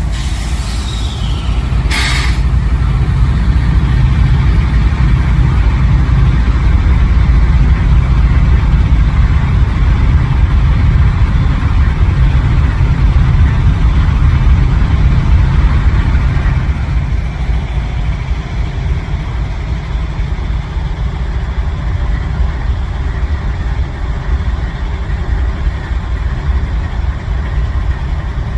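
Norfolk Southern diesel locomotive engine running close by, a deep steady rumble, with one sharp clank about two seconds in; the rumble eases somewhat after about sixteen seconds.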